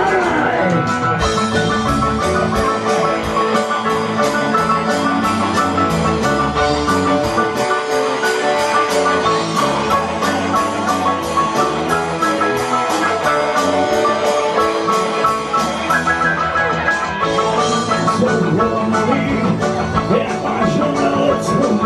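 Amateur rock band playing live: electric guitar, bass guitar, keyboard and drum kit, with a steady beat on the cymbals.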